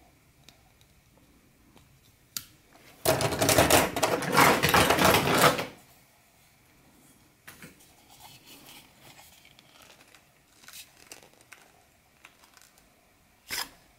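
Hands handling knives: a click, then about two and a half seconds of loud clattering, then light clicks and scrapes and one sharp click near the end.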